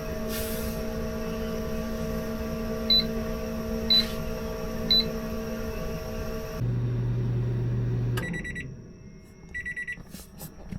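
Microwave oven running with a steady hum, then three electronic beeps about a second apart. About two-thirds through, the hum changes to a lower drone and then stops, and more beeps follow near the end.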